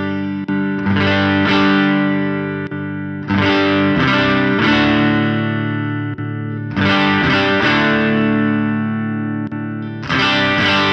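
Electric guitar ringing out chords on a clean tone through a NUX Ace of Tone dual overdrive pedal, a new chord struck about every three seconds and left to sustain.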